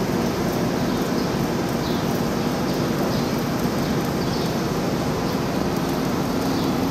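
Steady crackling hiss of electric arc welding, with a low hum underneath.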